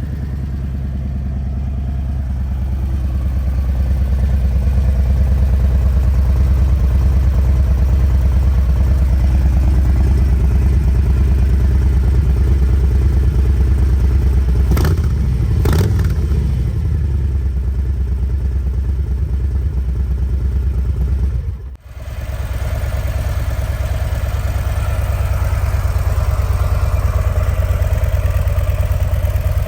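Harley-Davidson Low Rider ST's Milwaukee-Eight 117 V-twin running loud and steady through its slip-on mufflers, growing louder over the first few seconds. Two sharp knocks come about halfway through. About two-thirds of the way in the sound cuts off abruptly and comes back as a lower, steadier idle.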